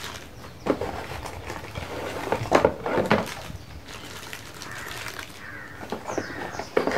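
Hands unpacking camera accessories and cables: rustling packaging with a series of sharp clicks and knocks as items are handled and set down, the loudest about two and a half to three seconds in. Birds chirp faintly in the background.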